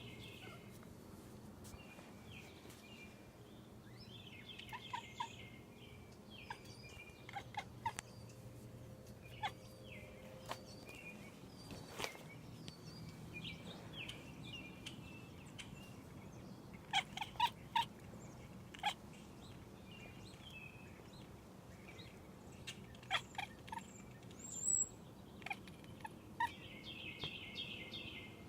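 A small pet animal making repeated short chirping calls in scattered bouts, with sharp clicks between them, the loudest clicks in clusters past the middle.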